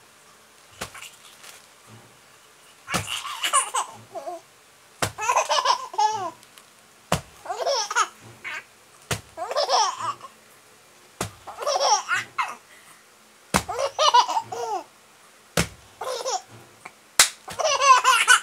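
A baby laughing in short bouts about every two seconds, each bout coming right after a sharp click.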